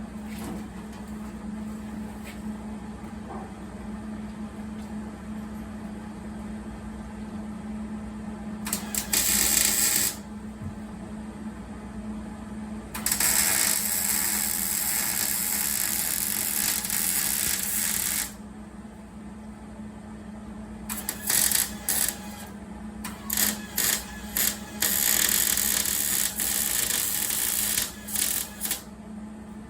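Welding arc running in bursts: one short run about a third of the way in, a steady run of about five seconds in the middle, then a string of short stop-start stitch welds near the end, over a steady low hum.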